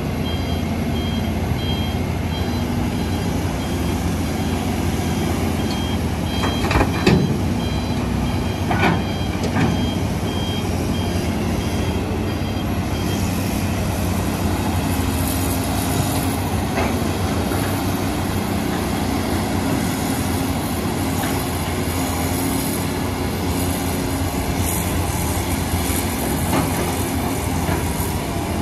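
Diesel engines of excavators and dump trucks running steadily, with a vehicle's reversing alarm beeping repeatedly for roughly the first twelve seconds. A couple of loud clanks come about seven and nine seconds in.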